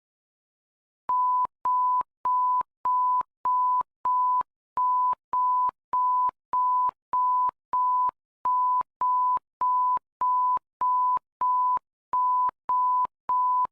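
Electronic alert tone: a single pure steady-pitched beep, about two a second, repeating evenly with a slightly longer pause every few seconds. It starts after about a second of silence.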